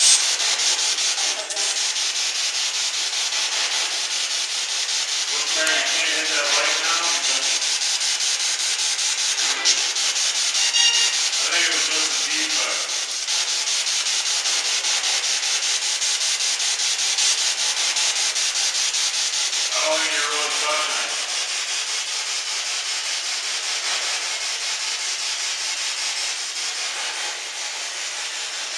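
Spirit box sweeping rapidly through radio stations: a steady, finely chopped hiss of static, with brief fragments of voices breaking through three times, about six, eleven and twenty seconds in.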